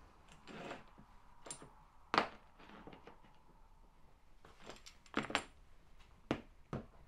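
Metal tank axle arms being picked up and set down on a workbench mat, giving a series of sharp metal clinks and knocks, about seven in all, the loudest about two seconds in.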